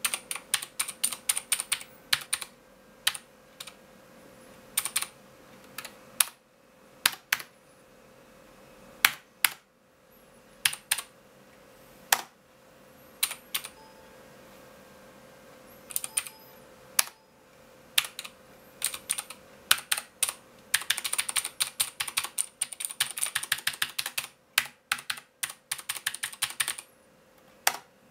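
Leopold FC700R mechanical keyboard with clicky blue switches being typed on: sharp key clicks in short irregular bursts with pauses, then a fast continuous run of typing about three quarters of the way in.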